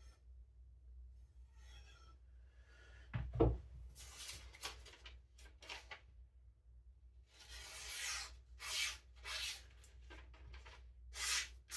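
A knife blade scraping in a series of short strokes, about one every half second, after a single dull thump about three seconds in.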